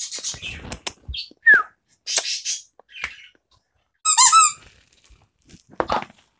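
Pig-shaped rubber squeaky toy being squeezed: a short squeak about a second and a half in, then a loud, wavering squeak about four seconds in, with light rustling between. Near the end there is a soft knock as the toy is tossed onto the floor.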